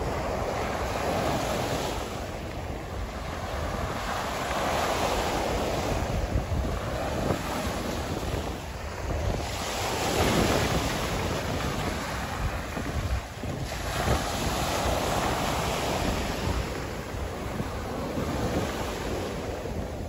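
Small waves breaking and washing up the beach, the surf swelling and easing every four or five seconds, with wind buffeting the microphone.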